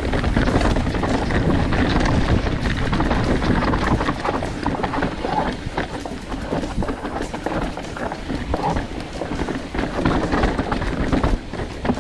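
Mountain bike rolling down a rocky dirt trail: wind buffeting the handlebar-mounted camera microphone over the tyres crunching on dirt and rock, with frequent knocks and rattles from the bike as it rides over rocks.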